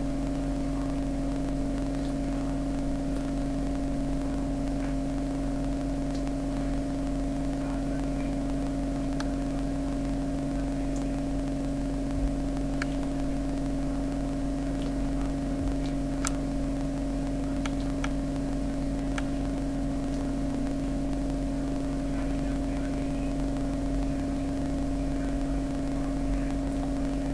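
Steady electrical hum, a constant low drone that does not change, with a few faint ticks scattered through it.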